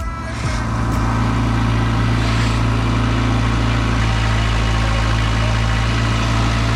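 Kymron ZX22 mini excavator's engine running steadily at a constant speed, with a strong low hum; it comes up to full level about half a second in.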